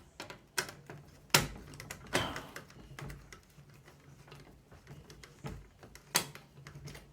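Irregular sharp clicks and knocks of a screwdriver and fan screws against a PC case and plastic case fan as the fan is screwed in; the loudest click comes about a second and a half in.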